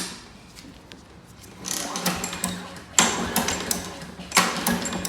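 Recoil starter of a Craftsman 650 series lawn mower pulled three times in quick succession, the engine turning over with a whirring rattle on each pull but not catching. The mower will not start after fresh gas, fresh oil and priming.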